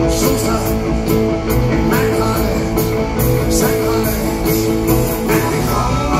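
Rock band playing live: electric guitars, bass, keyboards and a steady drum beat, with a man singing into a microphone.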